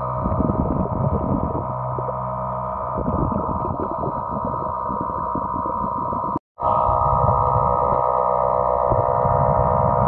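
Underwater sound picked up by a camera in a waterproof housing: a steady hum of several level tones over muffled rumbling and swishing from water moving around the camera. The sound drops out abruptly for a moment about six and a half seconds in, then resumes unchanged.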